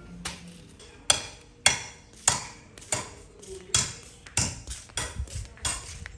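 Repeated sharp knocks on something hard, about one or two a second, each with a short ring, starting about a second in.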